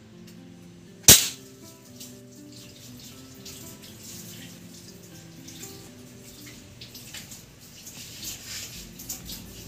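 Homemade rubber-powered fishing crossbow (slingbow) shot once: a single sharp crack about a second in. Near the end comes crinkly rustling at the plastic feed sack that served as the target, with background music throughout.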